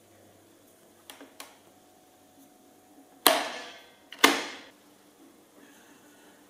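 Hard objects handled at a Nescafé Dolce Gusto capsule coffee machine: a few light clicks, then two loud, sharp knocks about a second apart.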